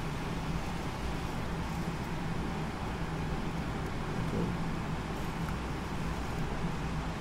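Steady low hum with a faint hiss, unchanging throughout: background room noise on the microphone.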